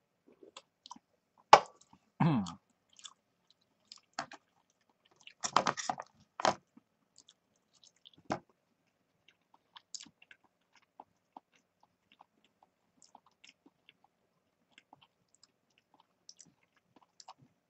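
A person eating a boxed bento lunch with chopsticks close to the microphone: scattered chewing and biting noises and small clicks, the sharpest click about one and a half seconds in.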